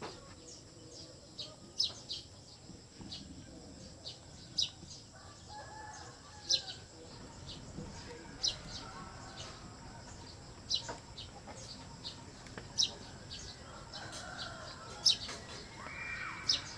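Short, sharp, high-pitched bird chirps repeating about every two seconds over a steady high whine, with fainter, longer wavering calls at about five seconds and again near the end.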